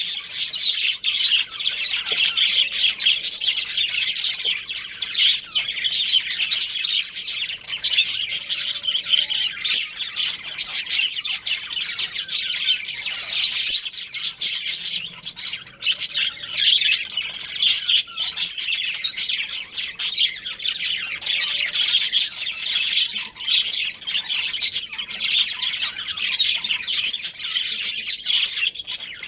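Budgerigars chirping and chattering without pause, a dense run of quick high chirps with the odd squawk.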